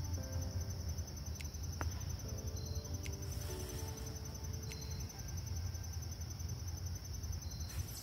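Insects trilling steadily in a high, rapidly pulsing tone over a steady low rumble.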